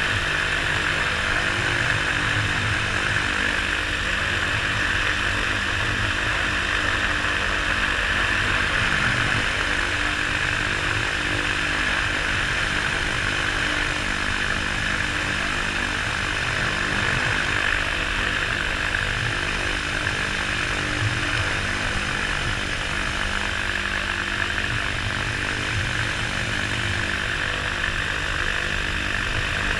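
Flex-wing microlight trike's engine and pusher propeller running steadily while the trike taxis on the ground.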